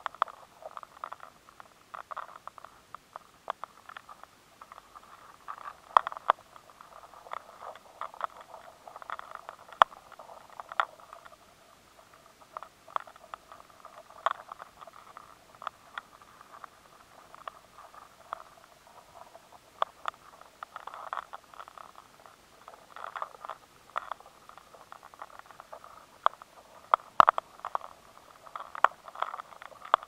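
Insect larvae gnawing inside stored grain kernels, picked up by a high-sensitivity sensor. The sound is an irregular crackling scrape with sharp clicks scattered through it, a few much louder than the rest.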